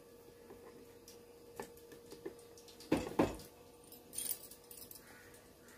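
Kitchen utensils being handled: a few faint clicks, then two knocks close together about three seconds in, followed by a brief scraping rustle.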